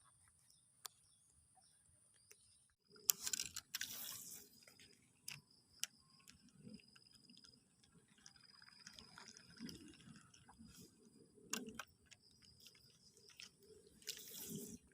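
Faint water sounds with scattered light clicks, from a fishing lure being worked through flooded water and the reel being handled. Two short louder bursts come about three seconds in and near the end, over a steady high-pitched tone.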